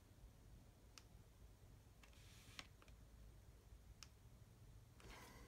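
A camera shutter clicking faintly three times, about a second and a half apart, with a soft rustle of handling in between.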